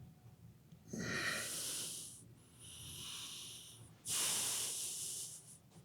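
A man breathing heavily: three long, noisy breaths, the second quieter than the other two.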